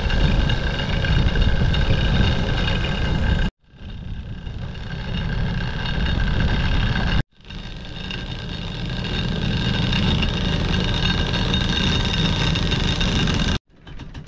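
Sailboat's engine running steadily, heard in three stretches joined by abrupt cuts about 3.5 seconds and 7 seconds in and again near the end.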